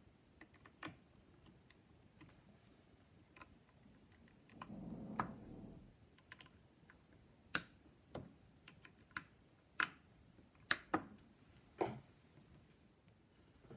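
Scattered sharp plastic clicks and taps from a small screwdriver and fingers working on the opened plastic body of a DJI Mavic Air drone, the loudest in the second half, with a brief muffled rub about five seconds in.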